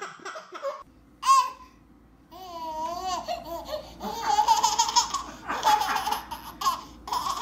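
Babies laughing: a baby's giggles, then after a short pause a toddler's high-pitched wavering squeals and bursts of laughter.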